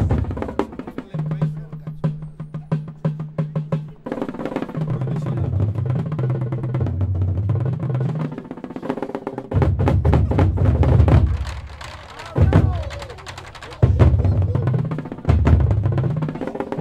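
Marching band drumline playing: a row of tuned bass drums hammering out low notes that step up and down in pitch, over rapid snare and tenor drum strokes. It drops briefly about two-thirds of the way in, then comes back with loud hits. Crowd voices underneath.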